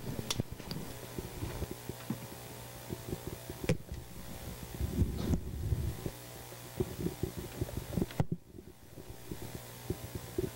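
Handling noise from a live corded handheld microphone as it is picked up and carried: scattered irregular bumps, rubs and clicks, with rustling of papers, over a steady low hum.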